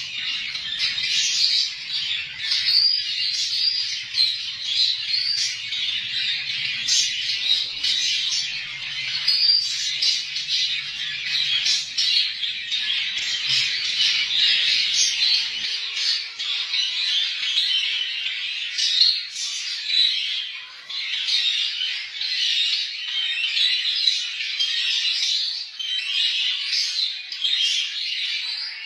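Dense, continuous chorus of many small cage birds chirping and squawking over one another, with a faint low hum underneath that stops a little past the middle.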